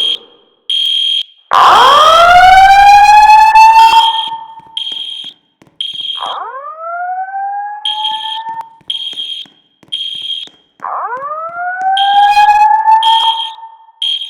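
Building fire alarm evacuation signal: short, high-pitched beeps sound in groups of three with a pause between groups (the temporal-three evacuation pattern). Over them, three slow rising whoop tones sweep upward in pitch.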